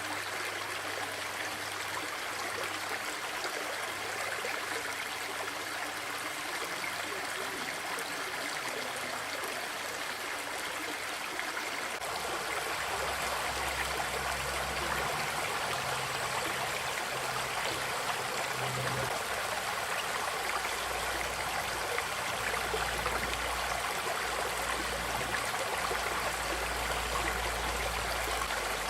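Steady rush of flowing water from a creek or waterfall, with a low rumble joining in about twelve seconds in.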